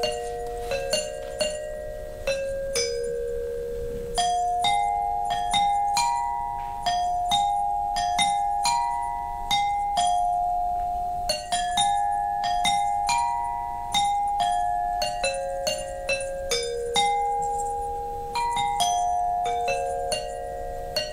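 Music: a slow melody of single bell-like notes on a tuned percussion instrument, each struck sharply and left to ring and fade into the next.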